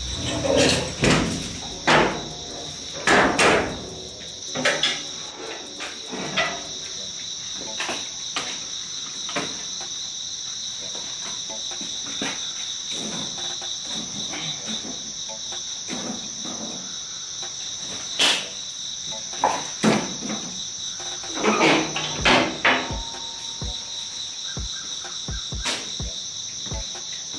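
Metal clanks and knocks from a steel offset smoker as its lid is closed and its firebox is tended, the knocks coming in clusters in the first few seconds and again past the middle. A steady high insect trill runs underneath.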